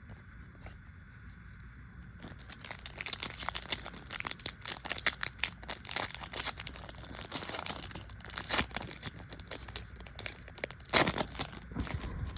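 Wrapper of a Panini Chronicles trading-card pack being crinkled and torn open by hand, starting about two seconds in: a dense run of crackles with louder rips near the middle and again near the end.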